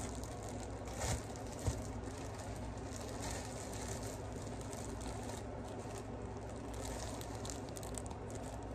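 Plastic bread bag crinkling as it is opened and handled and slices are pulled out, with two short knocks about a second in, over a steady low hum.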